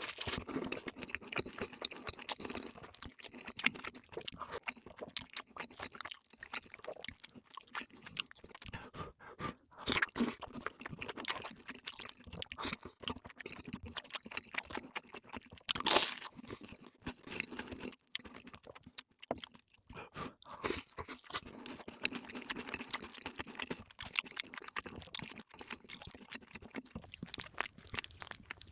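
Close-up mukbang eating sounds: crunchy bites and wet chewing in an irregular run of crackles, with the loudest sharp crunch about sixteen seconds in.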